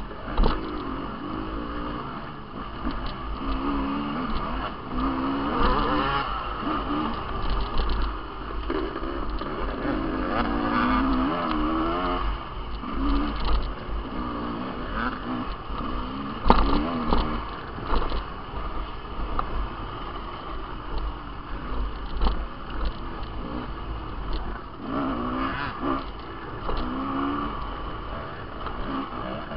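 Dirt bike engine revving up and down over and over as the bike is ridden along a rough trail, with a low wind rumble on the microphone. A sharp knock comes a little past halfway.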